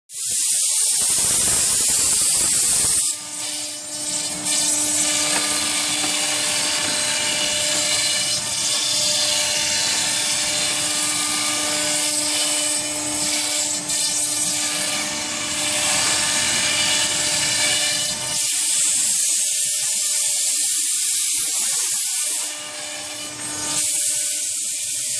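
CNC router spindle running with a steady whine as its end mill cuts through pink foam insulation board, along with a rushing hiss. Near the end a compressed-air blow gun adds short spells of high hiss as it clears foam chips from the cutter.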